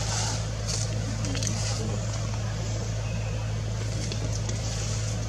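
A steady low hum over a constant background hiss, with a few faint light ticks.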